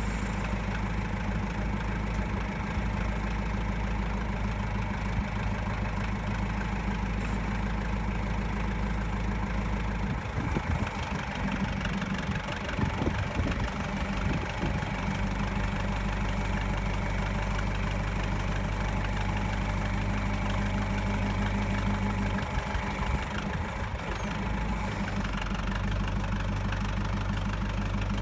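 John Deere 500-C backhoe's engine idling steadily, its even note unsettled twice, about ten seconds in and again a little past twenty seconds.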